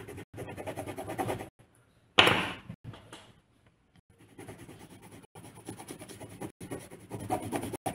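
Coloured pencil scratching back and forth on paper as it shades in a drawing. A sharp knock comes about two seconds in, followed by a short pause before the shading resumes.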